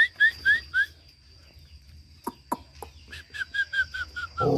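A bird calling in runs of short clear notes: a quick burst of about five at the start, then after a pause a longer run that steps down slightly in pitch. A few sharp clicks fall between the runs, and a faint steady high tone runs underneath.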